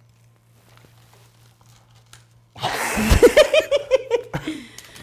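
A woman bursting into laughter about two and a half seconds in: a quick run of loud "ha-ha-ha" pulses lasting about two seconds and trailing off. Before it there are only faint small clicks.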